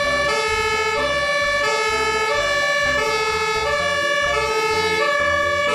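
Fire engine's two-tone siren alternating steadily between a high and a low note, each held a little over half a second.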